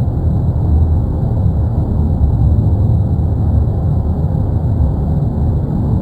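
Erupting Cumbre Vieja volcano giving off a steady, deep rumble with no breaks.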